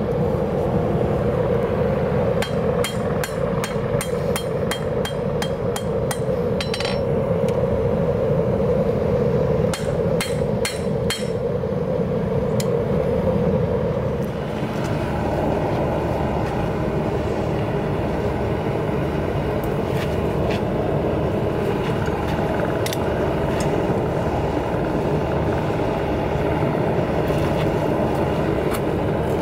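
A hand hammer strikes a hot railroad spike on a steel anvil in quick runs of blows, about two to three a second, which stop after about eleven seconds. A gas forge burner runs steadily underneath. In the second half only a few light metal clinks are left over the burner noise as the hot spike is worked in a vise.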